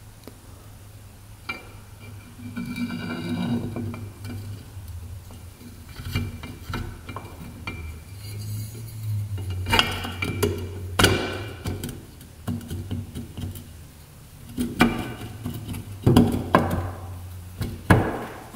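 Aluminium crankcase halves of a Honda Z50 engine being handled and fitted together: scattered metal clinks and knocks, a few sharp ones in the second half, over a low steady hum.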